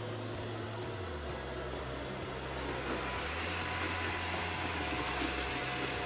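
Ecovacs Deebot N79S robot vacuum running steadily, its motor and brushes humming as it drives across a small throw rug and off it without getting caught.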